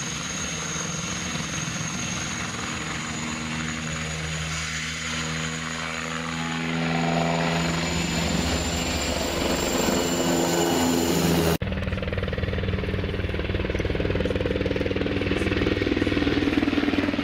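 Heavy engines running, with a steady high whine over a deep engine note that climbs in pitch as the engine speeds up. Partway through the sound cuts off abruptly and gives way to another engine, which also rises in pitch near the end.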